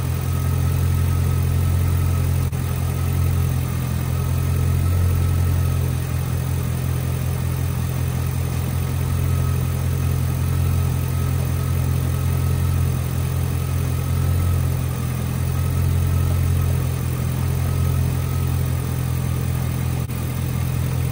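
The freshly installed 5.3-litre V8 of a 2006 Chevrolet Silverado idling steadily, kept running so the transmission fluid level can be checked and topped up.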